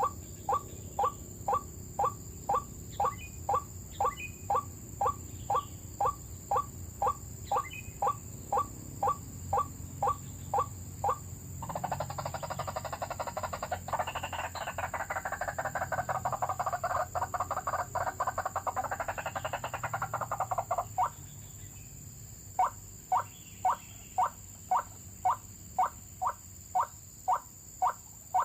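White-breasted waterhen (ruak-ruak) calling: a steady series of short, repeated croaking notes at about two a second. A dense chattering chorus lasts about nine seconds in the middle, and then the spaced notes resume.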